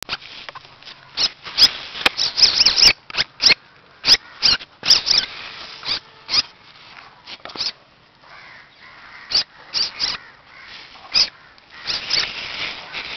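Baby Indian civet cat giving many short, high-pitched squeaky calls in quick, irregular runs, thickest in the first five seconds and sparser later.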